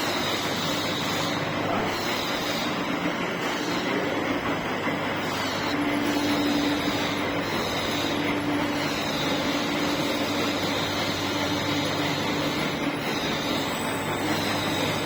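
DIP-300 universal screw-cutting lathe running with its spindle turning: a steady mechanical hum from the headstock gearing with a held low whine.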